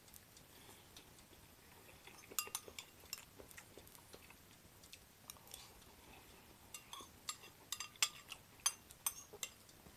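Faint, scattered clinks of an eating utensil against dishware while someone eats: a few light clicks about two and a half seconds in, then a closer run of them from about seven to nine and a half seconds.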